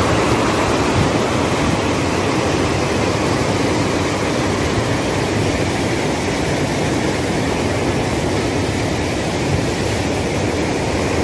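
Steady loud rush of white-water river rapids pouring over rocks, an even, unbroken roar of water.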